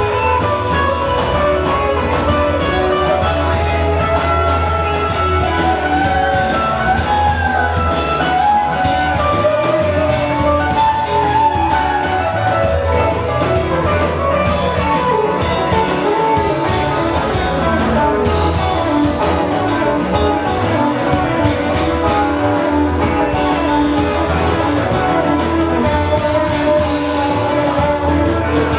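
Live rock band playing an extended instrumental passage: a lead guitar plays gliding, bending melodic lines over drum kit and a steady low bass.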